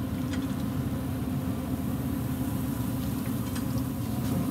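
Steady low hum of a pellet grill's combustion fan running while the grill is lit and up to temperature, with a few faint clicks.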